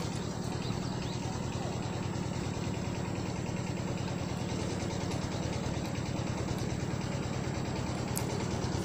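A steady low motor hum with a fine, even pulse, running without change.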